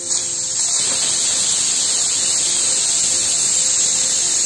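Pressure cooker whistling: steam jets out past the weight valve in a loud, steady, high hiss that starts suddenly. This first whistle shows the cooker has come up to full pressure, the point at which the rice is done and the flame goes off.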